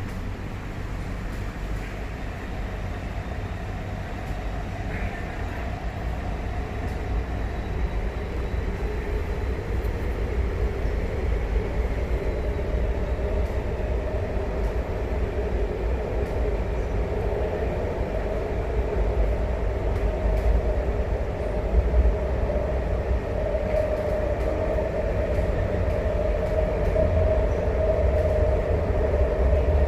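Inside a carriage of an MTR Tuen Ma Line China-built train running between stations: a steady low rumble of wheels on rail with a hum in the middle range, growing gradually louder.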